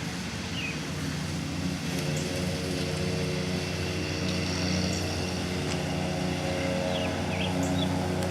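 A motor running steadily at one unchanging pitch, with a few faint short bird chirps over it.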